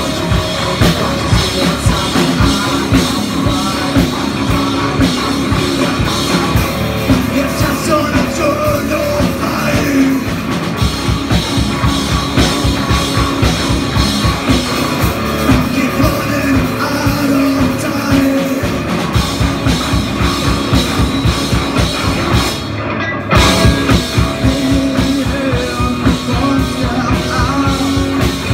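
Live metal band playing electric guitars, bass guitar and a drum kit, with a short break in the music about three-quarters of the way through before it comes back in.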